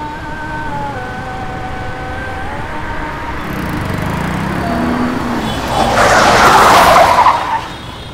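A car drives up and skids to a stop on a dirt yard, the engine rumble building before a loud skid of the tyres near the end.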